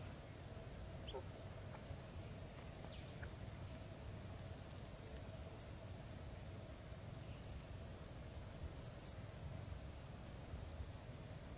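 Faint, scattered short high chirps of small birds, each dropping in pitch, with a brief high hiss about seven seconds in, over a low rumble and a faint steady hum.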